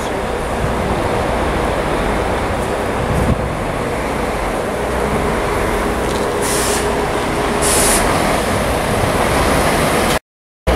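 Street noise with a large diesel tour coach running close by: a steady, dense engine and traffic rumble, with two short high hisses a little over a second apart past the middle. The sound drops out briefly near the end.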